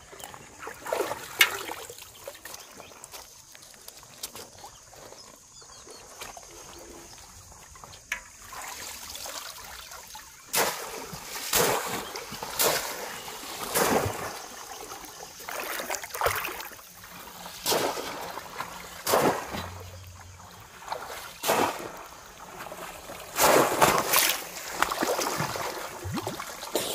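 Shallow river water splashing and sloshing as a person crawls and sweeps their arms through it. It is quieter with light trickling and a few small splashes at first, then comes in strong surges every second or two over the second half.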